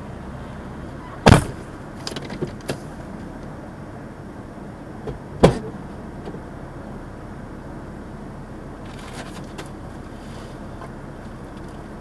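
Steady low rumble inside the cabin of a stopped vehicle, broken by two loud sharp knocks, about a second in and again about five seconds in, with a few lighter clicks and rattles between and near the end.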